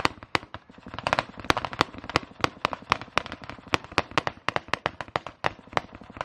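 Rifle gunfire from several shooters: sharp, irregular shots at about four or five a second, overlapping in a steady string.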